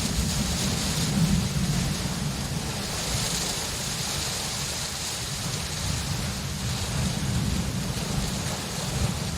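Steady rain falling, with low thunder rumbling underneath that swells a little about a second in.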